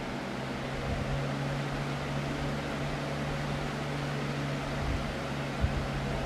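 Lasko 3720 Weather Shield box fan running, a steady rush of air from its blades over a low electric motor hum. One brief tap comes near the end.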